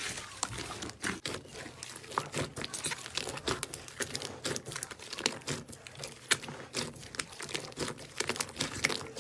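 Slime being squeezed and pressed by hand, giving a dense, irregular run of small crackling, popping clicks.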